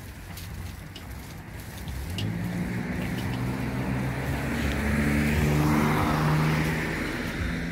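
A car approaching and passing close by. Its engine note rises as it accelerates, and the tyre noise swells to a peak about six seconds in, then fades near the end.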